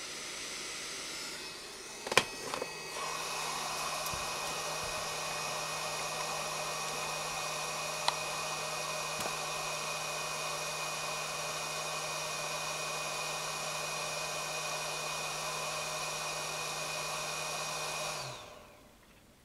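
The blower fan of a JCD 8898 rework station's hot air gun runs steadily with a whirring hum, with a sharp click about two seconds in as the gun is set back in its holder. The fan keeps blowing while the docked gun cools down, then winds down and stops near the end as the station's auto-off shuts it down.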